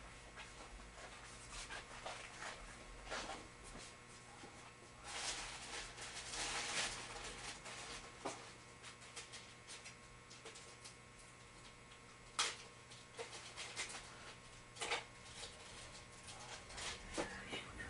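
Faint off-mic rummaging through spare parts: scattered clicks and light knocks, with a longer stretch of rustling and clattering about five to seven seconds in and a few sharper clicks later on, as a spare idler gear is searched for.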